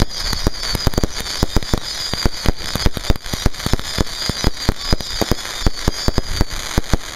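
Large multi-shot firework cake firing: a rapid, irregular string of launch bangs and crackling bursts, several a second, with a steady high hiss over them.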